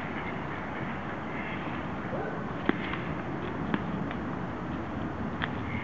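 Steady background noise of an urban underpass, broken by three sharp knocks spread across the second half.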